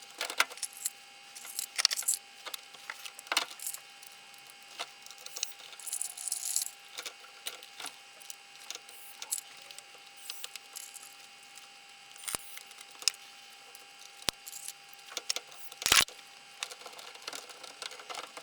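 Plastic cover panel of a top-loading washing machine being fitted back into place by hand: scattered clicks, taps and light rattles of plastic parts, the loudest knock near the end.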